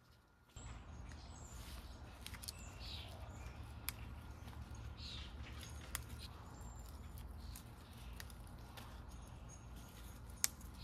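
Faint garden ambience: birds chirping now and then over a steady low rumble, with three sharp clicks as daylily flowers are snapped off their stems by hand.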